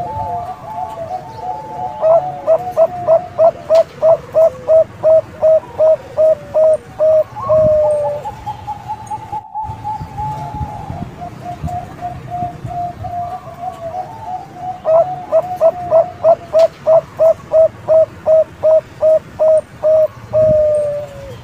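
Zebra dove of the Thai-bred 'Bangkok' song strain cooing: two bouts of rapid staccato coos, about three a second, each ending in a longer falling note, with softer trilling coos between.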